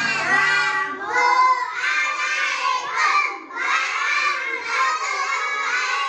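A class of young children reciting a prayer together in loud unison chant, with brief pauses between phrases.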